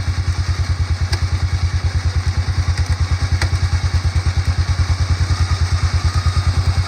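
Vehicle engine idling with a rapid, even low pulse of about a dozen beats a second, running a winch that hauls in a deer; a couple of faint ticks.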